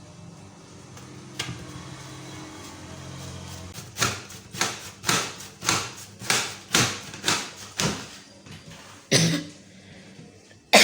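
A knife chopping on a cutting board, a regular run of sharp knocks about two a second for some four seconds, with a single knock after it. A low steady hum runs under the first part.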